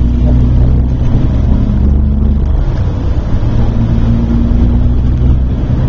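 Airport bus driving through a road tunnel, heard from inside the cabin: a loud, steady low rumble of engine and tyres, with an engine hum that drifts slightly in pitch.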